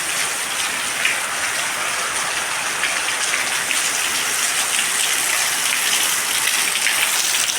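Water from an indoor leak pouring and splashing steadily, with a hiss like heavy rain.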